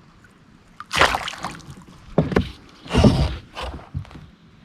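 Irregular knocks and splashy bumps against a kayak as a freshly caught bass is brought in and handled, about five sudden bursts with short gaps between.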